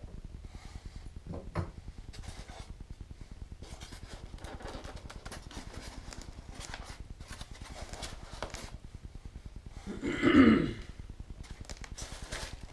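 Handling noise from unpacking a model crane: scattered clicks, knocks and packaging rustles as parts are lifted out, with one louder burst of rustling about ten seconds in.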